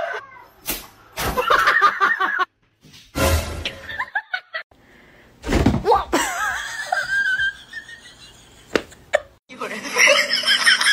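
People laughing in short bursts, broken by abrupt cuts and a few sharp knocks. About nine and a half seconds in, background music with held notes and a steady pulse starts.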